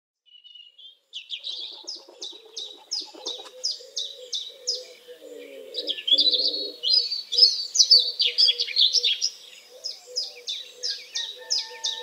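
Birds chirping: a steady run of short, high, down-slurred chirps repeated about three times a second, with a louder, busier flurry of chirping in the middle.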